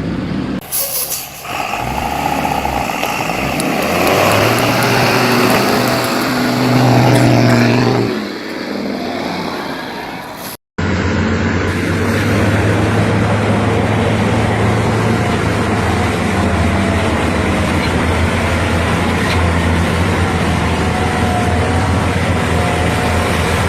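Truck engine running under load; its level rises to a peak and falls away. After a hard cut, a second vehicle engine runs with a steady low drone.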